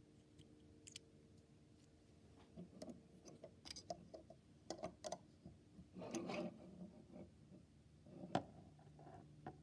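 Faint clicks and small rattles of plastic Lego pieces being handled and posed, with a brief rubbing rustle about six seconds in and one sharper click a little past eight seconds.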